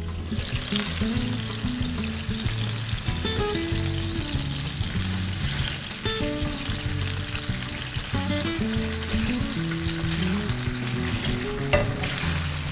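Food frying in a hot pan, a steady sizzle that starts right at the beginning, over background music.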